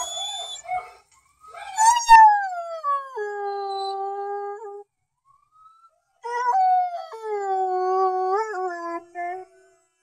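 Black and tan coonhound howling: two long howls of a few seconds each, the first sliding down in pitch and then held level, the second held with small wavers in pitch near its end.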